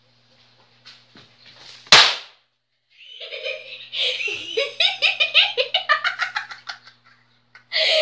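A single loud, sharp smack about two seconds in, then a person laughing in quick repeated bursts for several seconds.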